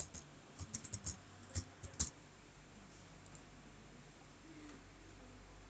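Computer keyboard keys being typed: a quick run of about ten keystrokes over the first two seconds.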